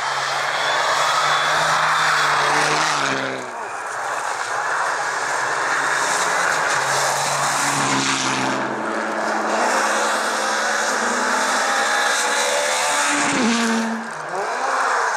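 Rally cars at full throttle on a gravel stage, engines revving high and stepping through gears as they pass, over a steady hiss of tyres on loose gravel. The engine note falls away briefly twice, a few seconds in and near the end.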